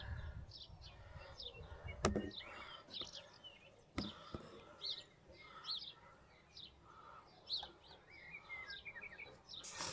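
Small birds chirping and twittering, many short quick calls, with two sharp clicks about two and four seconds in over a low rumble.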